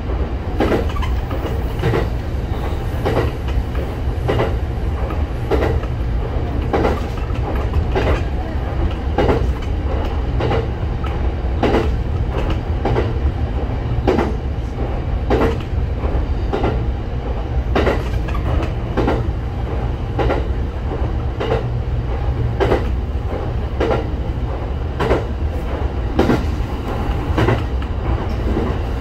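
Shinano Railway local electric train running along the Kita-Shinano Line, heard from inside the front of the train: a steady low rumble with frequent clicks, often in pairs, as the wheels pass over rail joints.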